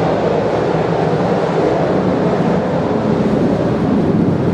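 Turbine-engined aircraft flying over, its engines making a loud, steady noise.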